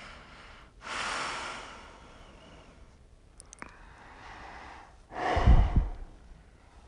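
A woman breathing heavily close to the microphone: a long, loud breath about a second in, a fainter one around four seconds, and a sharp exhale near the end that buffets the microphone.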